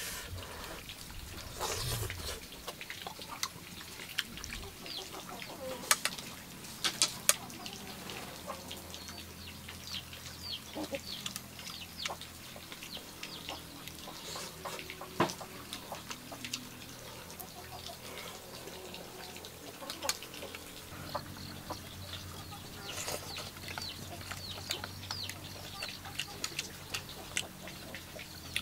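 Chickens clucking in the background, with sharp clicks of chopsticks against a bowl now and then during eating.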